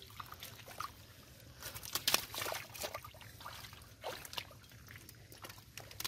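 Shallow muddy water sloshing and splashing in irregular bursts as hands grapple with a large catfish, the loudest splashes about two seconds in.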